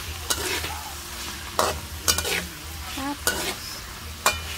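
Ground beef and diced eggplant sizzling in a metal wok while being stir-fried, with the metal spatula scraping and clacking against the pan about once a second.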